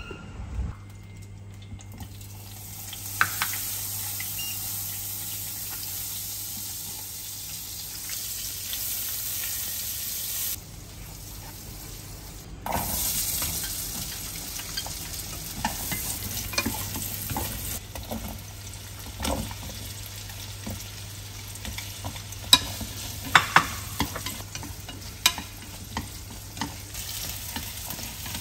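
Diced onion and vegetables sizzling in hot oil in a frying pan while chopsticks stir them, with sharp taps of the chopsticks against the pan, mostly in the second half. The sizzle starts about two seconds in.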